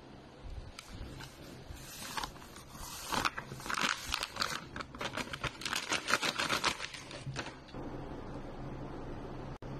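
Packet of vanilla cake mix crinkling and rustling as the dry powder is shaken out into a bowl of eggs. It comes as a dense run of crackles for a few seconds in the middle, then dies down.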